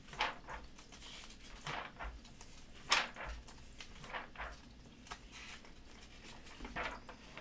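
Glossy catalog pages being turned by hand: several short paper rustles, the loudest about three seconds in.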